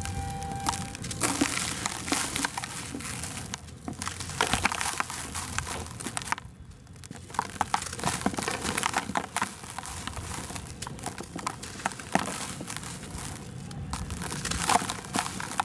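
Dry moulded sand-and-cement blocks being squeezed and broken apart by hand: irregular gritty crunching and crackling as they crumble to powder. There is a short lull about six and a half seconds in.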